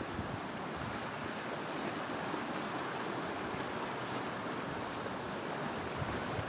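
Steady rush of a flowing stream, with a few faint high bird chirps scattered through it.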